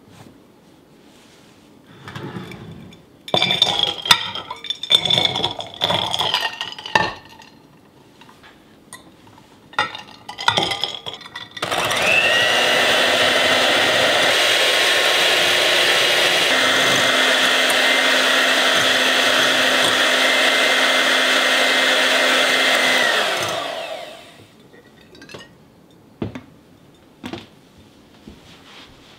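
Glassware clinking and knocking, then an electric hand mixer whipping white wine into a foam in a glass bowl. The mixer runs steadily for about eleven seconds and winds down as it is switched off, followed by a few light taps.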